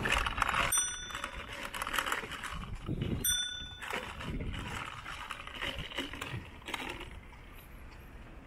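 Two short metallic dings of a small bell, about two and a half seconds apart, over faint outdoor background noise.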